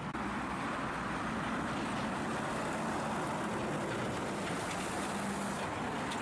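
Diesel engine of a multi-axle vacuum tanker lorry running steadily as it drives past and away, with tyre and road noise.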